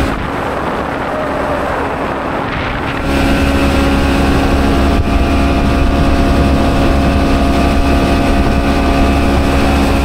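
Small fishing boat's outboard motor running steadily under way at part throttle. Its low drone dips for about the first three seconds, then comes back fuller.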